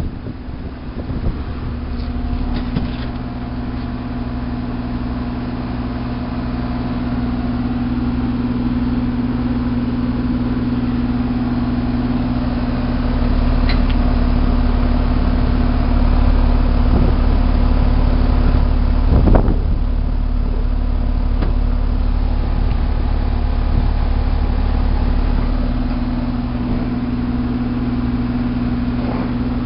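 Heil dry-charge air-conditioner condenser running: compressor and outdoor fan giving a quiet, steady hum. A low rumble swells in through the middle, with a couple of sharp clicks.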